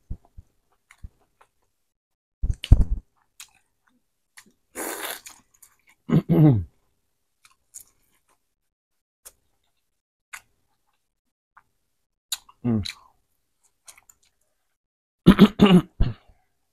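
Close-miked mouth sounds of a person eating Cajun-buttered corn on the cob: scattered wet smacks and clicks of chewing, with a few short hummed "mm" sounds of enjoyment, the longest near the end.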